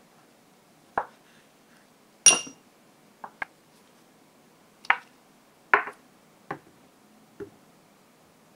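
About eight sharp taps and knocks of a kitchen knife and glass on a wooden cutting board as a small tomato is sliced and the slices are moved into a small glass bowl. The loudest, about two seconds in, is a clink with a short high ring, the glass bowl knocking on the board.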